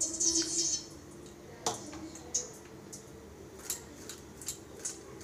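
Boiled potato and egg being grated by hand on a stainless-steel box grater: a scratchy rasp in the first second, then scattered short scrapes and clicks against the metal.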